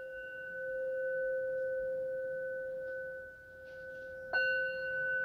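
A singing bowl ringing with a steady pure tone and a higher overtone, its loudness slowly swelling and dipping, then struck again about four seconds in. It is rung to give the tarot cards some vibration.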